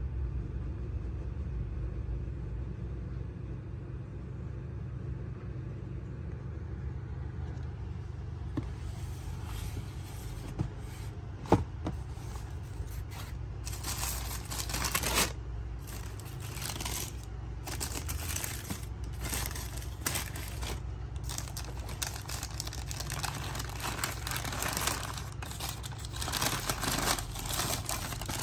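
Tissue paper inside a shoebox rustling and crinkling as it is handled and folded back in irregular bursts, starting about a third of the way in, with one sharp click along the way. A steady low hum runs underneath, and the first several seconds hold little besides it.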